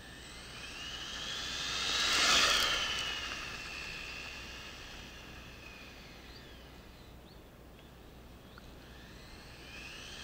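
High-speed RC car with a 3000KV brushless motor on 4S LiPo passing by: a high motor whine rises as it approaches, is loudest about two seconds in, and drops in pitch as it moves away. Near the end the whine rises again as the car comes back.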